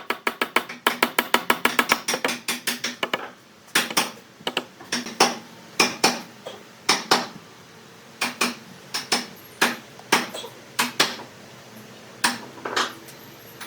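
Sharp knocks of hand-tool strikes, rapid at about five a second for the first three seconds, then slowing to single or paired knocks about a second apart, with a slight metallic ring.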